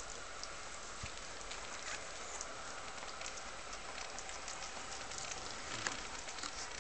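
Newborn puppies nursing and shuffling on bedding: many small soft clicks and rustles over a steady hiss.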